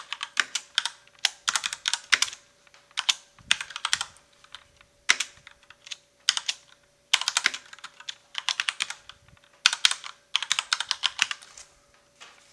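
Computer keyboard typing: bursts of rapid keystrokes with short pauses between words, stopping shortly before the end.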